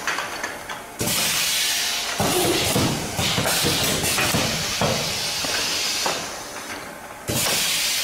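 Pneumatic filling and sealing machine of a semi-automatic bag-on-valve aerosol filling line, hissing with compressed air. The hiss starts suddenly about a second in, fades away after six seconds or so, and bursts back near the end, with scattered mechanical knocks.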